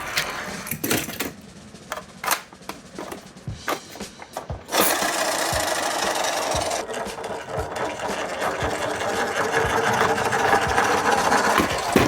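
Toy vehicles clicking and clattering with a few sharp knocks, then from about five seconds in a steady rattling whir as a toy vehicle runs along.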